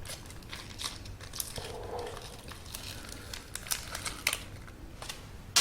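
Crinkling and rustling of the steamed buns' packaging being handled, a run of small crackles with a louder rustle near the end.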